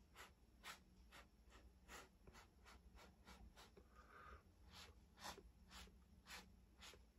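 Faint, light ticks and scratches, about two a second, from a wooden stick drawn and dabbed through wet acrylic paint on a stretched canvas.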